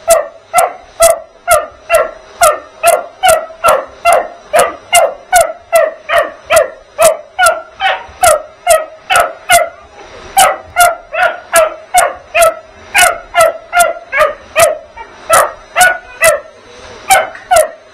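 Springer spaniel puppy barking at a running vacuum cleaner, short sharp barks about two a second with a brief break about ten seconds in. The vacuum's motor hums steadily underneath.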